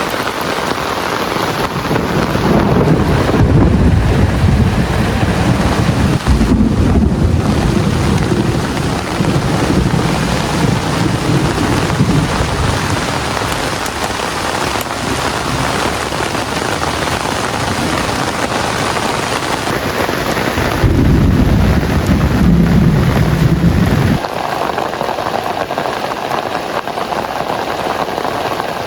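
Heavy rain falling steadily, with low rolling thunder rumbling through the first dozen seconds and again later, the second rumble cutting off suddenly.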